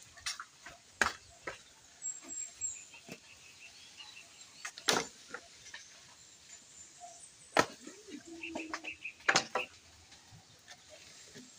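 Dry wooden firewood sticks knocking and clattering against each other as they are picked up and stacked onto a pile, in scattered sharp knocks, the loudest about five seconds in and twice more in the second half.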